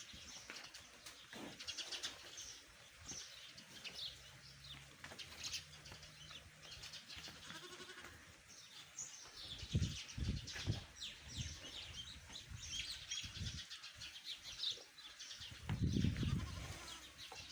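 Many small birds chirping busily throughout, with a few low thuds about ten seconds in and a longer low rumble near the end.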